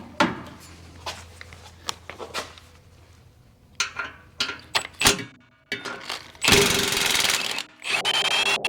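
Scattered metal clicks and knocks from tools on the exhaust hardware, then, about six and a half seconds in, a power tool runs in two long bursts with a brief pause between, backing out the bolts that hold the stock exhaust.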